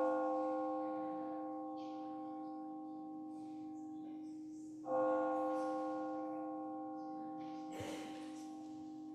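A bell tolling: struck twice about five seconds apart, each stroke ringing on and fading slowly, with its low hum carrying between strokes. A brief soft knock about eight seconds in.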